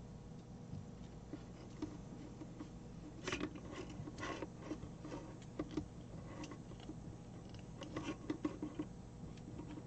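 Small clicks and rustles of fingers untwisting and straightening the thin twisted-pair wires at the stripped end of an Ethernet cable, in irregular bunches about three to four and a half seconds in and again around eight seconds in.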